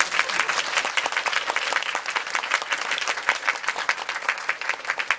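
Audience applauding, a dense patter of many hands clapping that dies away at the end.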